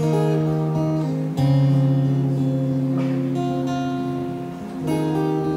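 Acoustic guitars strumming the opening chords of a song, each chord left to ring; a new chord comes about a second and a half in and another near the end.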